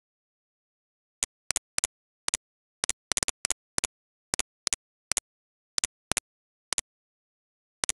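Computer mouse clicks, sharp and short, often in quick pairs like a press and release, at an irregular pace of about two to three a second, starting about a second in.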